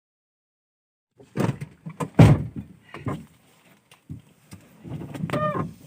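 About a second of silence, then a series of irregular thuds and knocks, the loudest a little over two seconds in. A short pitched sound comes near the end.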